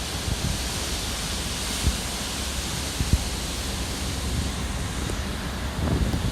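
Wind rushing over the microphone with a steady rush of sea, and short low thumps of wind buffeting the microphone about two and three seconds in and again near the end.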